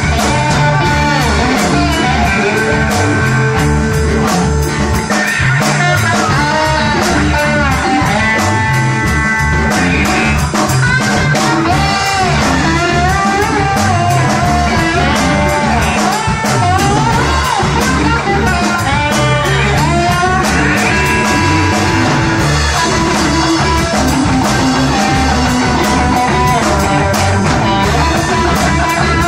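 Live rock music from a band with two electric guitars, one playing a lead line with bent and wavering notes, over a steady drum beat.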